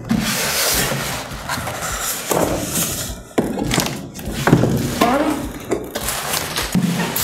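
Cardboard box and polystyrene foam packaging being handled and pulled apart: continuous rustling and scraping with scattered knocks and thuds.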